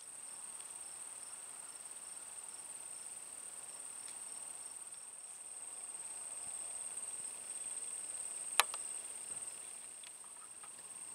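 Insects in the grass making a steady high-pitched trill, with a second insect chirping about three times a second. One sharp click sounds about eight and a half seconds in.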